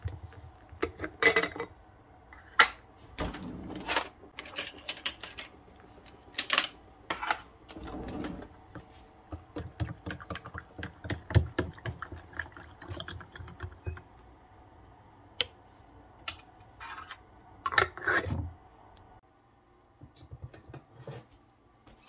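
Irregular clicks, knocks and light clatters, like objects being handled. A run of quicker, lighter clicks comes in the middle, and a louder cluster of knocks comes near the end.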